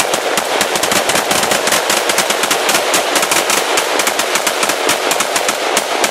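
Several rifles (an AK-47, an AR-15, a C93 and an AR in .308) firing rapidly at once: a dense, uneven stream of gunshots, several a second, with no pause.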